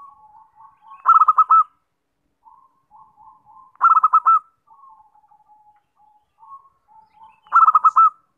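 Zebra dove cooing: a run of soft, low notes broken three times by a loud burst of four or five quick cooing notes lasting about half a second, roughly every three seconds.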